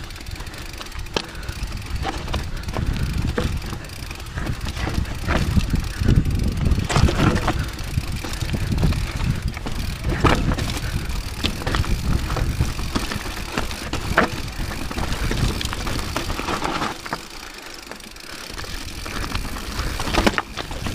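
Rocky Mountain 790 MSL full-suspension mountain bike descending a rocky trail. A steady low rumble of tyres over stones and rough ground runs throughout, with frequent sharp clicks and clatters from the bike as it hits rocks. The rumble eases off for a couple of seconds near the end, then picks up again.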